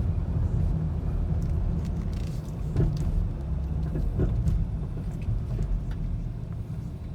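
Steady low engine and road rumble of a 2006 Volvo XC90's 2.5-litre five-cylinder turbo, heard from inside the cabin while driving. Light knocks come about three and four seconds in: a clunking the owner puts down to a loose heat shield at the joint between the resonator and the catalytic converter.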